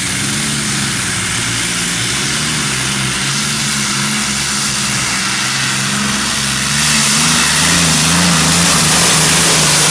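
Multi-engine modified pulling tractor running at low, uneven revs, its engines' tone wavering slightly under a loud rushing noise. It gets louder about seven seconds in.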